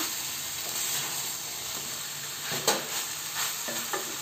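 Potatoes, pointed gourd and paneer sizzling in oil and masala in a metal kadhai over high heat, stirred with a spatula, with a few short scrapes of the spatula against the pan.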